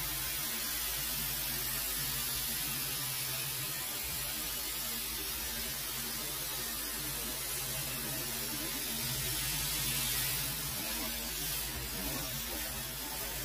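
Pressure washer jet spraying water onto an alloy wheel: a steady hiss of spray over a low, even motor hum.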